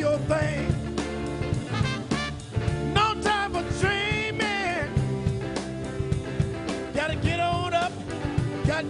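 Background music: a song with a singer and band accompaniment, the voice holding long bending notes.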